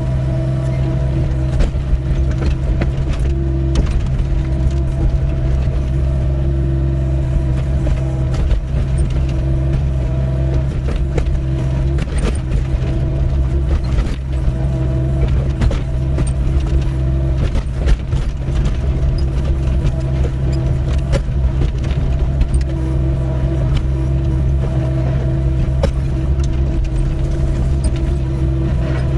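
Doosan 55W wheeled excavator's diesel engine running steadily at working revs, with scattered sharp knocks and scrapes from the digging in rocky ground.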